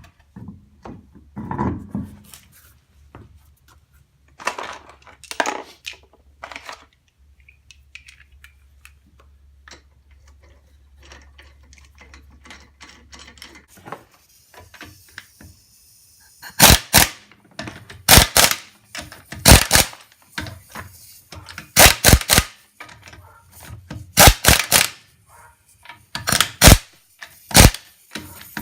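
Impact wrench running the lug nuts onto a wheel. It hammers in short, loud rattling bursts every second or two through the second half, after quieter clicks and handling of the wheel.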